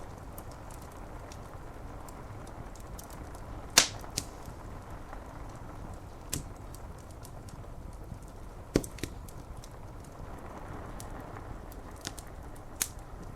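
Wood fire crackling with scattered sharp pops and faint ticks, the loudest pop about four seconds in. Behind it is a steady hiss of rain on window glass.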